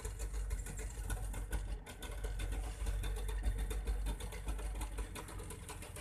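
Boat engine running steadily, a low even rumble as the boat moves along.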